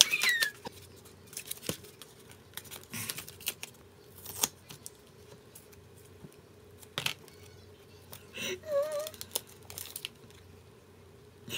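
Paper and plastic handling: a kraft-cardboard card mailer and clear plastic photocard sleeves rustling and crinkling, with scattered sharp clicks and taps as the cards are pulled out and set down.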